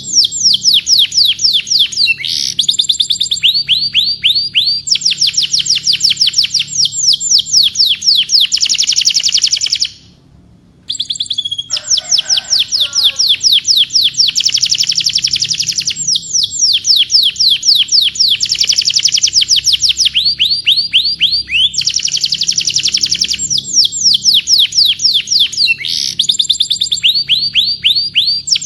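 Canary singing long rolling trills of fast, high, downward-sweeping notes, one trill after another. The song breaks off for about a second roughly ten seconds in, then resumes.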